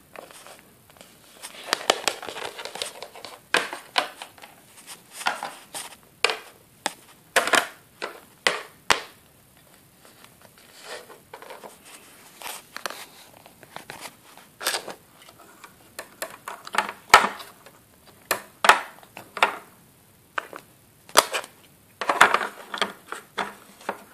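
Irregular clicks, knocks and rustles of plastic toy figures and playset pieces being handled and set down on a wooden floor.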